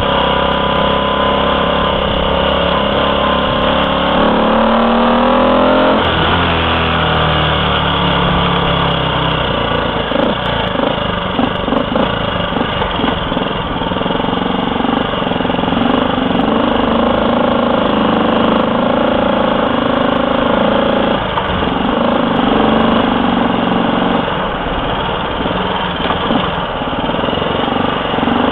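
Honda Cub C100's small single-cylinder four-stroke engine running under way through its upswept muffler. Its pitch rises as it accelerates for the first few seconds, then drops abruptly at a gear change about six seconds in. After that it holds a lower, fairly steady pitch under wind and road noise.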